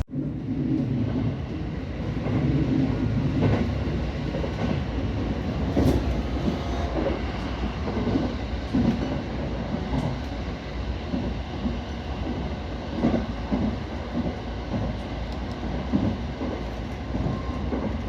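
A train running on rails: a steady low rumble with scattered knocks and clicks from the wheels and the car.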